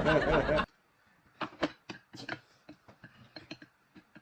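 Talk and laughter cut off suddenly under a second in. Then come quiet, irregular clicks and smacks of people eating at a table: utensils tapping and chewing.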